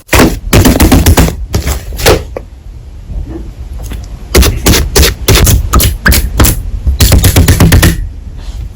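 Slime being squeezed and pressed by hand, giving rapid runs of crackling pops and clicks, with a quieter lull of about two seconds in the middle.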